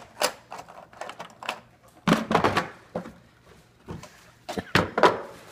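Hollow plastic knocks and clatter as plastic toy dart blasters and a plastic ammo case are handled and set down on a table: a string of separate clacks, the loudest about two seconds in and again near the end.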